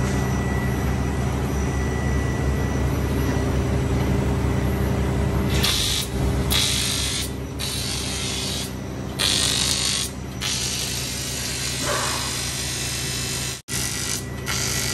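Arc welding on a cracked aluminium alloy car wheel: a steady machine hum, then from about five seconds in repeated bursts of arc hiss, each half a second to a second long, as the welder strikes the arc on the crack.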